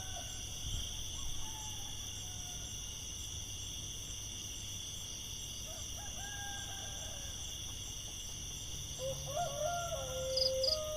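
Roosters crowing faintly, with calls about a second in, around six seconds in, and a longer, louder crow from about nine seconds in, over a steady high-pitched background drone.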